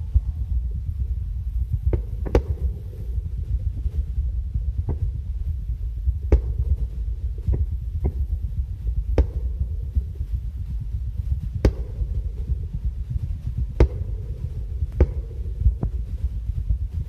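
Fireworks shells bursting: about a dozen sharp bangs at uneven intervals, some ringing out briefly, over a steady low rumble.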